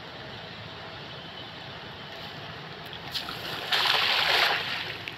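A thrown cast net splashing down onto the river surface, its weighted rim hitting the water in one loud splash lasting about a second, nearly four seconds in, over a steady outdoor background hiss.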